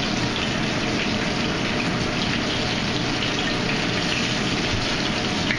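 Steady, even rushing noise with no pauses or changes: kitchen background noise of the kind made by running water or a ventilation fan.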